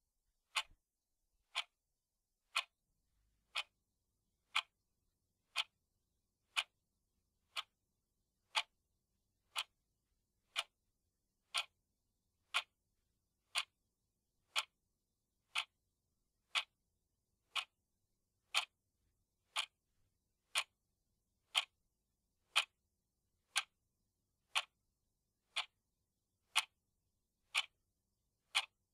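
Cuckoo clock ticking steadily, one short, sharp tick about every second.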